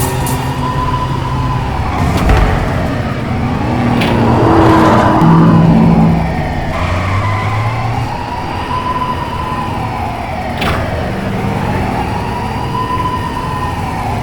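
Police siren wailing in slow rise-and-fall cycles about every four seconds, over a running car engine, with a louder rushing swell near the middle and a few sharp knocks.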